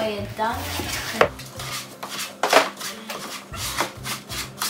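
A wooden spoon stirring a thick oat mixture in a mixing bowl, scraping and knocking against the bowl's sides in a run of irregular strokes.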